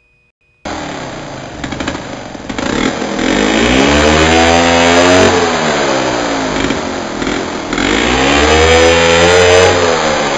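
A chainsaw's small two-stroke engine cuts in suddenly and runs loudly, revving up and back down twice.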